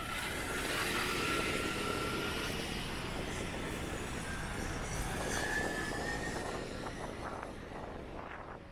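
Road traffic going by: cars and a motor scooter passing, their engines and tyres blending into a steady noise with a brief engine whine rising out of it twice.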